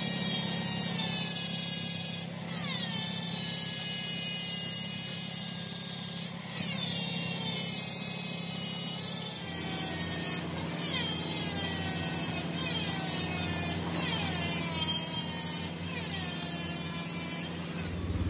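Lathe spinning a hydraulic breaker's piston while a handheld die grinder polishes it, throwing sparks, over the lathe motor's steady hum. The grinder's high whine starts with a sharp scrape every few seconds and falls in pitch each time.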